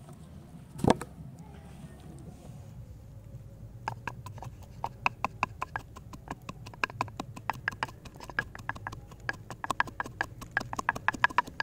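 Wooden pestle pounding in a wooden mortar, crushing green chilies and ginger: a single louder knock about a second in, then from about four seconds in a fast, steady run of sharp wooden knocks, several a second.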